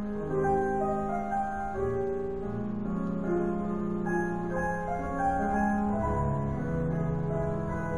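Classical piano music, slow, with long held notes.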